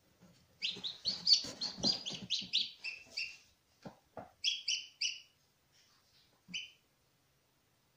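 Newly hatched Ayam Cemani chick peeping: a fast run of high peeps, about four a second, for the first three seconds or so, then a few spaced pairs of peeps. Two short soft knocks come about four seconds in.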